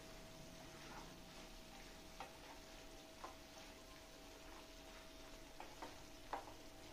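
Wooden spatula knocking softly against a nonstick frying pan while thick chicken curry is stirred: about half a dozen faint clicks scattered through, over a faint steady tone.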